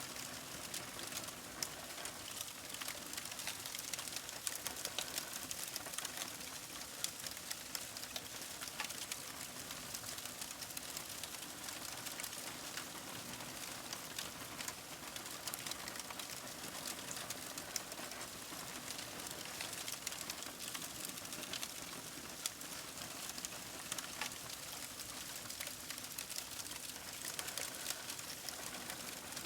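Paper burning, a steady hiss with many small crackles and snaps scattered irregularly throughout.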